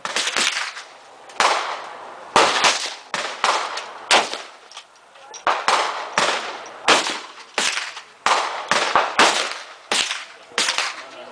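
Gunfire at an outdoor shooting range: about twenty sharp shots at uneven spacing, at times several a second, each with a short echo.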